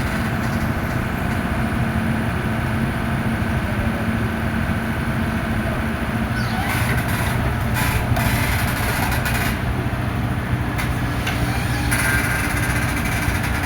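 Komatsu excavator's diesel engine running steadily, with patches of high hissing coming and going from about halfway through.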